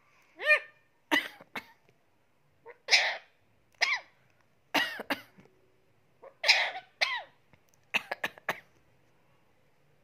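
Indian ringneck parakeet giving a string of short calls and clicks, about eight bursts, several with a quick rise and fall in pitch.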